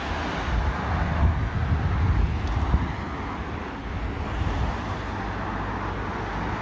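Cars passing along a road, the tyre-and-engine noise swelling and fading as they go by, with wind rumbling on the microphone.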